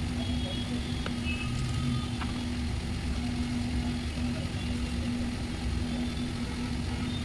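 Machine running steadily, a constant low hum over a rumble, with a few faint ticks.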